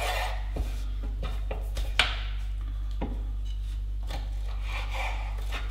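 Kitchen knife slicing lengthwise through cabanossi sausages on a wooden cutting board: soft rubbing cuts with scattered knocks of the blade and sausage on the board, the loudest about two seconds in. A steady low hum runs underneath.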